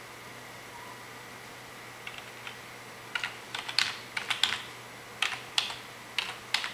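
Light, irregular clicks and taps starting about two seconds in as a glow plug's plastic wire connector is handled and pushed onto the glow plug of a 1.3 CDTi diesel engine.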